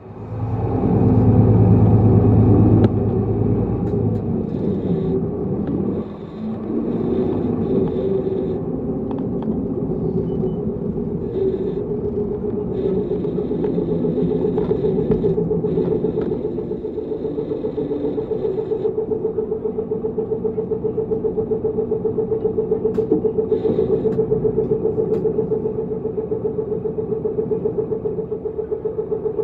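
Tokyu Bus city bus engine running, loudest in the first three seconds, then settling to a steady hum with an even throb.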